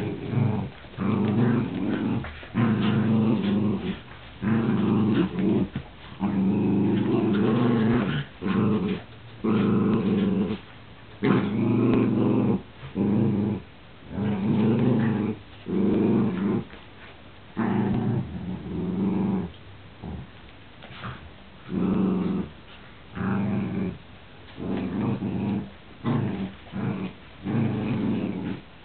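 Dogs growling in play while tugging on a rope toy: a long run of low growls, each lasting about one to two seconds with short breaks between.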